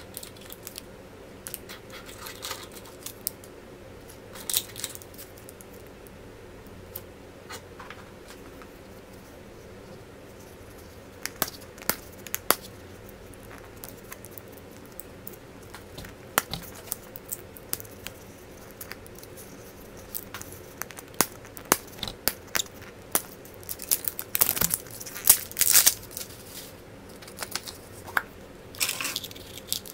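Surprise-egg wrapper being crinkled and torn open by hand, with scattered sharp clicks and taps from handling the egg and its contents. The handling gets busier and louder late on.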